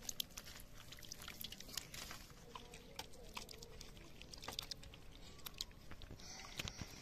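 Hands washing raw mutton pieces in water in a steel plate: faint wet squelching and splashing, with many short clicks as the meat is rubbed and squeezed.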